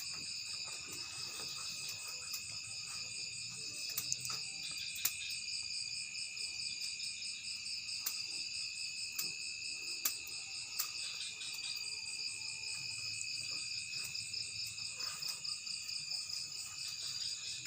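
Steady, high chorus of insects chirring, with a few faint clicks scattered through it.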